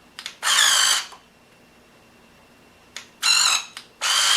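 Electric motors of a 1/16 scale RC Cat track loader whirring in short bursts as it is driven and its arms are worked: one burst about half a second in, another about three seconds in, and a longer one starting near the end, each with a wavering high whine.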